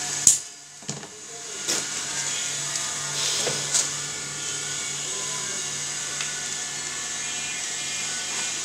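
Steady hiss with a low hum, broken by a few sharp clicks and knocks from small parts and an aluminium heat sink being handled on a workbench. The loudest knock comes about a third of a second in.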